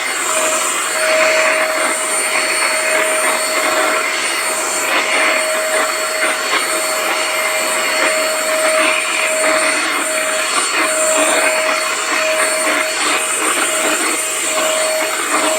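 Electric vacuum cleaner running steadily: a constant loud rushing hiss with a steady whine, played as soothing white noise for a baby's sleep.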